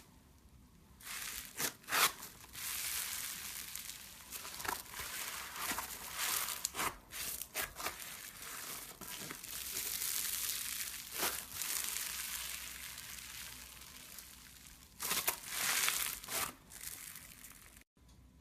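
Crunchy slime squeezed and pressed by hand, giving dense crackling and crunching with repeated louder bursts of crackle.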